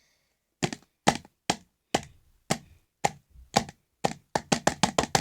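A series of sharp taps and knocks, spaced about half a second apart at first and quickening to about four a second near the end.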